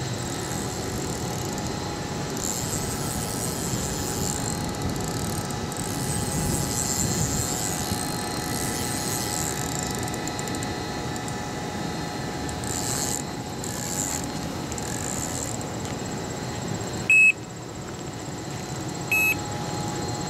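Two short electronic beeps about two seconds apart near the end, from a carp-fishing bite alarm on the rod stand, over a steady background hum.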